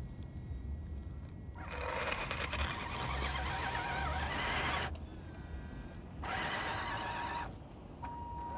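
Electric motor and gears of an Axial SCX10 RC crawler whining as it pushes through snow. The whine comes in two bursts, a longer one starting about two seconds in and a shorter one near the end, wavering in pitch with the throttle.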